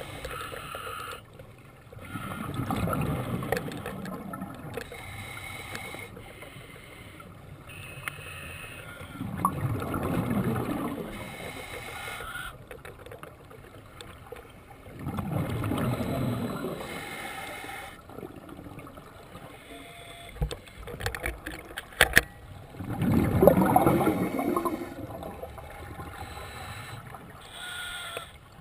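Scuba divers breathing through their regulators underwater: four loud rushes of exhaled bubbles about six to seven seconds apart, with a few sharp clicks and knocks about twenty seconds in.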